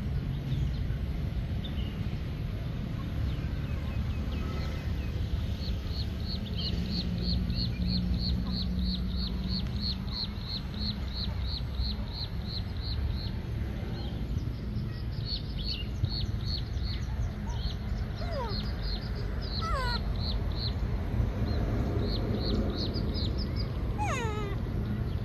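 Animal calls: runs of short high chirps repeated about three times a second, and a couple of short rising squeaks, over a steady low rumble.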